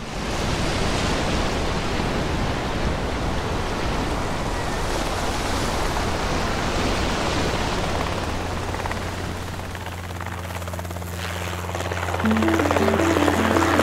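Storm noise of rushing wind and heavy surf. About ten seconds in it thins into a steady low hum, and helicopter rotor sound with music comes in near the end.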